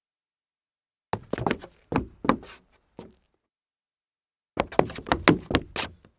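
Leather-soled dress shoes stumbling on a wooden floor: two bursts of hard, uneven heel and sole knocks, the first with a few scattered steps and a lone stray knock about three seconds in, the second a quick tumbling run of steps near the end.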